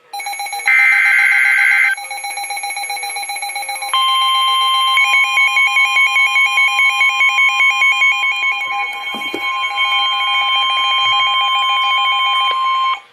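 Emergency Alert System warning signal: a loud, harsh burst of data tones about a second in, then from about 4 s a long steady alert tone near 1 kHz held for about nine seconds, with other beeping tones layered over it. The tones cut off abruptly at the end, ahead of the spoken severe thunderstorm warning.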